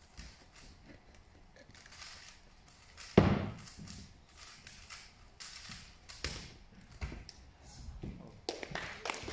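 Scattered taps and knocks, with one loud thump about three seconds in; applause starts up near the end.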